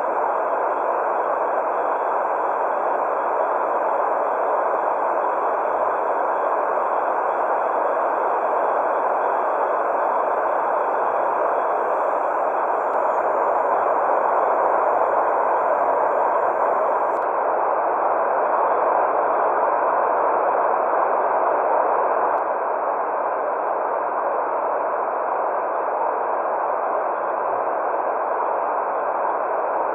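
Steady white noise: an even, unbroken hiss, strongest in the middle range, with no rise or fall.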